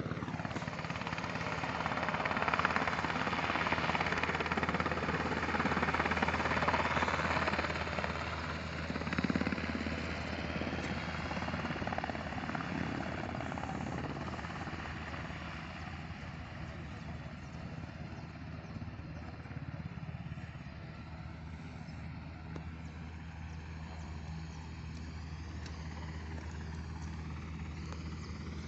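Helicopter flying past: a steady low drone under a rushing noise, loudest in the first several seconds and fading away after about ten seconds.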